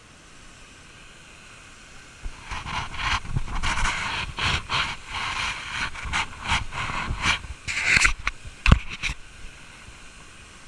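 Handling noise on a GoPro camera: a hand rubbing, scraping and knocking against the camera and its mount for about seven seconds, with a sharp knock near the end, over a faint steady hiss.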